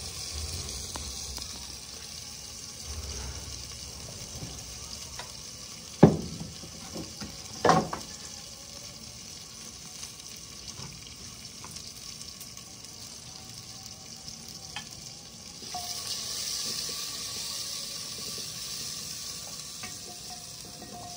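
Onion, tomato and garlic masala sizzling as it fries in a clay handi, stirred with a wooden spoon. Two sharp knocks come about six and eight seconds in, and the sizzling grows louder after about fifteen seconds.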